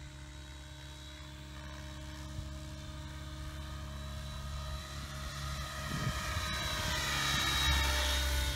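Align T-Rex 700E electric RC helicopter flying, a steady rotor and motor sound with a high whine, growing louder as it comes in low and close, loudest near the end.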